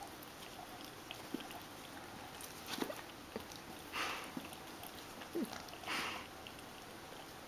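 A miniature pinscher licking yogurt from a small cup held up to it: quiet licks and small clicks, with three short puffs of noise spread through the middle.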